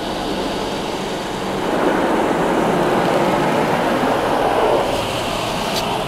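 Belanger Freestyler automatic car wash's spinning cloth brushes and water spray pounding on the car, heard muffled from inside the cabin. The rushing, scrubbing noise grows louder about two seconds in.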